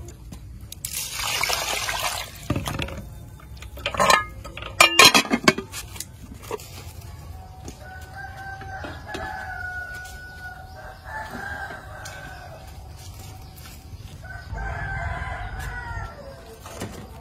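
Roosters crowing in the background, three long calls in the second half. Earlier come a short rush of noise about a second in and a few sharp clanks around four to five seconds in.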